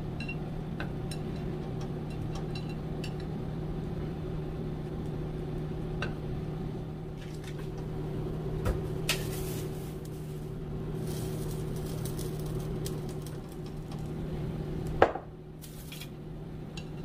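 Light clinks and taps of hands working masa dough and filling on a ceramic plate, over a steady low kitchen hum, with a louder knock near the end.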